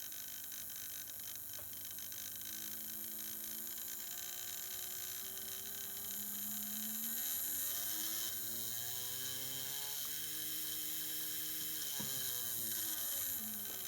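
Small electric motor of a Fleischmann BR 140 model locomotive whining while it runs, its pitch rising as it speeds up and falling near the end as it slows, with light rapid clicking early on. This is the strange running noise the owner thinks comes from the motor.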